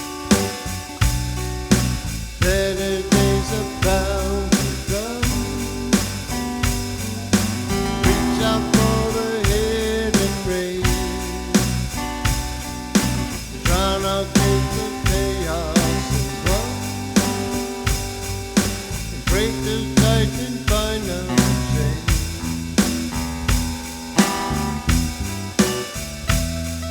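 Small acoustic string band playing a song: strummed guitar keeping a steady beat of about two strokes a second over bass, with a bending melody line on top.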